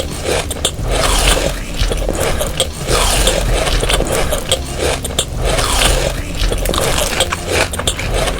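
Close-up eating sounds, scraping and chewing, over background music with a low bass line.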